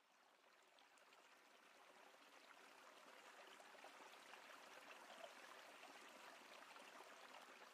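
Faint harbour water lapping and splashing, fading in slowly.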